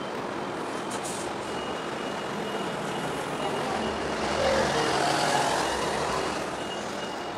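Steady engine rumble of ships manoeuvring in the harbour, swelling for a few seconds midway as the tanker's funnel puffs black smoke, with a faint thin high tone above it.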